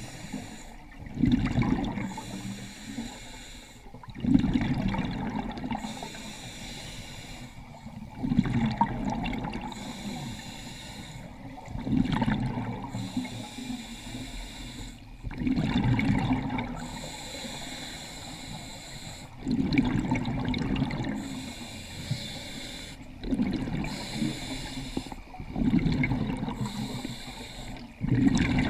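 Scuba diver breathing through a regulator underwater: a hiss on each inhale, then a loud rush of exhaled bubbles, about eight breaths, one every three to four seconds.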